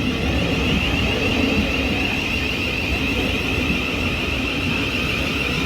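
Thameslink Class 700 electric train running at the platform: a steady low rumble with a continuous high whine over it.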